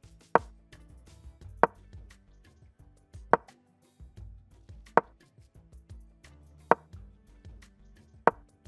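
Chess-board move sound effect: a sharp wooden click each time a piece is placed, six times at an even pace of about one every one and a half seconds. Soft background music plays underneath.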